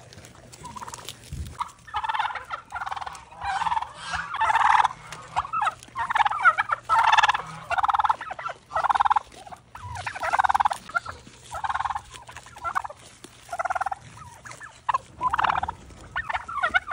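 Domestic tom turkey gobbling again and again, in short loud bursts from about two seconds in.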